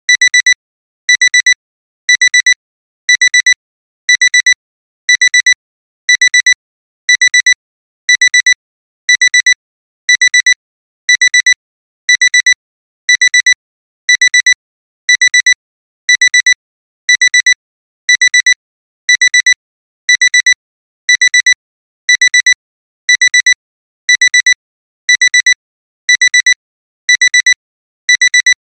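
Electronic alarm-clock alarm beeping: a high-pitched double beep repeated about once a second, steady and unchanging, signalling that the timer has run out.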